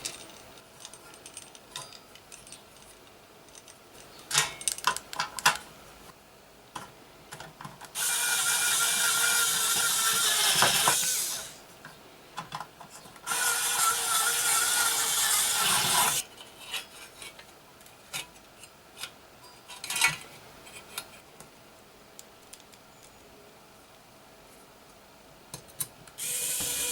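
Small parts and hand tools being handled while a computer is taken apart: scattered clicks and knocks. Two loud hissing bursts of about three seconds each come a few seconds apart near the middle.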